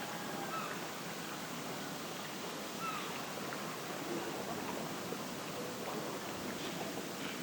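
Outdoor morning ambience: a steady background hiss with a few faint, short animal calls scattered through it.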